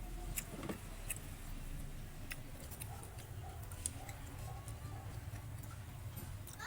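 Eating sounds: a few sharp, scattered light clicks and taps over a low steady hum.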